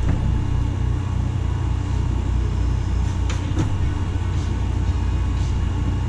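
Steady low rumble of background machinery or room noise, with a few light clicks, two of them close together about three seconds in, from handling the eMac's parts while disconnecting its power button cable.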